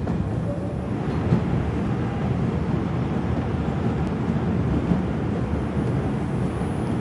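New York City subway 2 train running on elevated track, heard from inside the car: a steady, low rumble of wheels on the rails.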